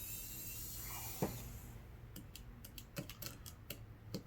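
Light, sharp clicks and ticks of small tools and screws on a smartphone's plastic frame during disassembly, one about a second in and then a quick run of about a dozen, over a low steady hum.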